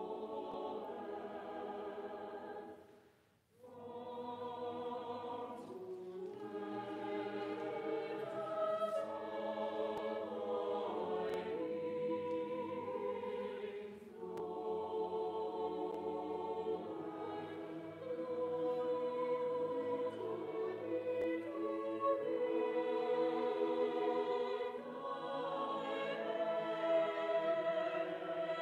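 Mixed choir singing unaccompanied in sustained chords, with a brief break about three seconds in before the voices come back in.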